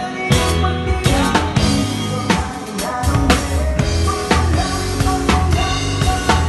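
Live band playing, heard close to the drum kit: kick drum, snare and cymbal hits in a steady groove over sustained bass notes and the other instruments.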